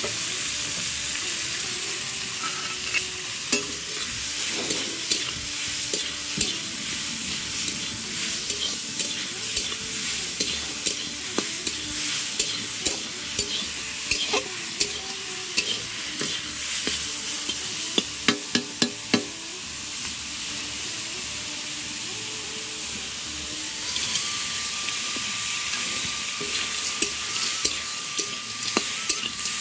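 Purple amaranth leaves frying in a kadai: a steady sizzle, with a utensil stirring and scraping through them. About eighteen seconds in comes a quick run of sharp knocks of the utensil against the pan.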